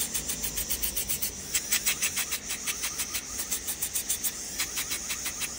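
Podiatry micromotor nail drill spinning a flat sanding disc against a fungus-affected toenail. A steady high whine with a rapid rasping pulse, about eight a second, as the disc grinds down the nail surface.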